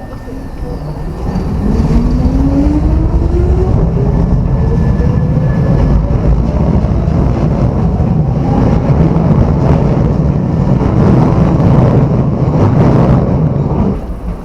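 Electric train running past close by, a loud rumble with a motor whine that rises steadily in pitch as it gathers speed; the sound drops off sharply near the end.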